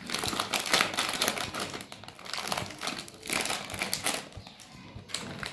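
Plastic snack packet of Shahi Nimko Royal Mix crinkling and crackling in irregular bursts as it is pulled and torn open by hand.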